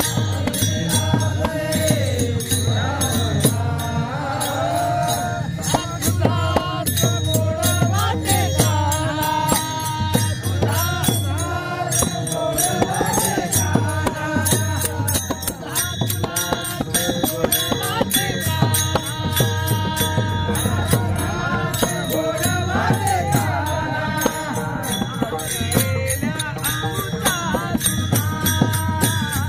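Men's voices singing a Marathi Varkari gavlan (devotional song), with small brass hand cymbals (taal) clashing in a steady rhythm throughout.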